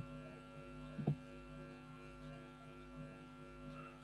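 Steady electrical mains hum with many overtones, with one brief low thump about a second in.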